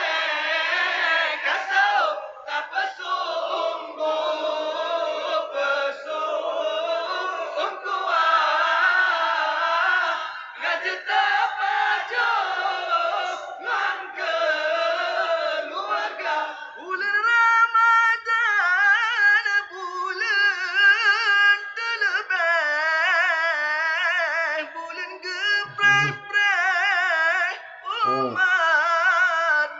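Young men singing an Indonesian sahur wake-up song through a microphone, the group's voices together at first; a little over halfway in, one voice carries the melody with a wavering, ornamented vibrato.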